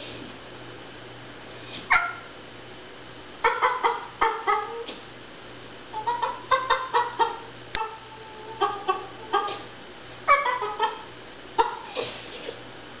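Bullmastiff making short, quick clucking yips in clusters of rapid notes, some sliding down in pitch, repeated every second or two, sounding like a hen clucking.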